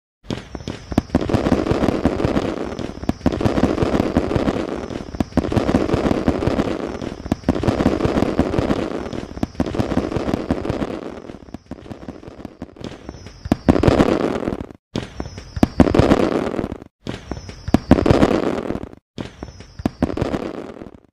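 Fireworks bursting one after another, about every two seconds. Each burst opens with a short falling whistle, then a bang and a dense crackle. The last few bursts are split by sudden silent gaps.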